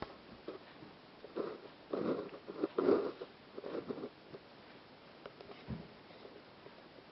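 Two cats play-wrestling: a flurry of scuffling, pawing and body bumps for about three seconds, then a few light taps.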